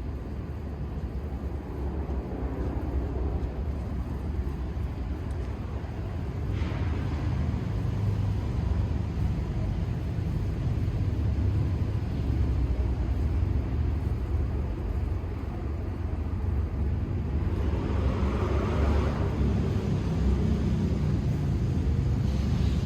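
Steady low outdoor rumble, with a short hiss about six and a half seconds in and a broader swell of noise near the end.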